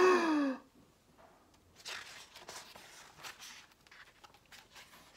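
A man's drawn-out, theatrical gasp, rising then falling in pitch, in the first half second. Then faint paper rustles and soft clicks as the pages of a hardcover picture book are turned.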